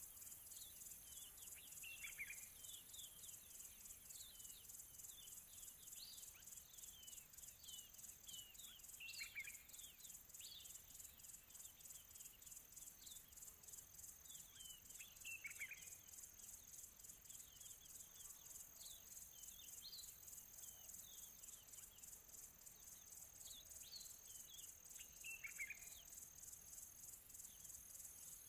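Near silence with a faint, steady, high-pitched cricket-like trill, and short falling chirps a few times.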